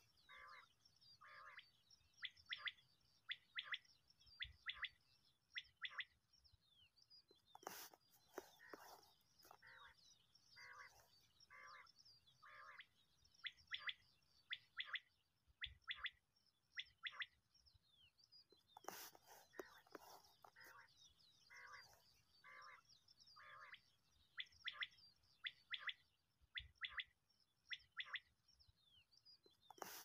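Common quail calling: short calls repeated in quick groups, over and over, with a fainter high twittering behind them and two sharp clicks along the way.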